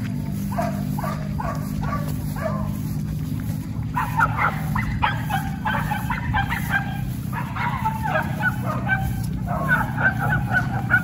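Hunting dogs giving tongue while trailing a civet: first a run of about five short yelping barks, then from about four seconds in several dogs barking and yelping over each other. A steady low rumble runs underneath.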